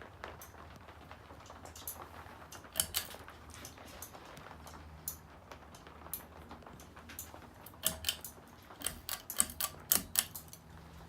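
Encon Princess ceiling fan with a faint, steady low motor hum that strengthens about halfway through. Irregular sharp clicks and ticks sound over it, a few at first and a quick cluster near the end.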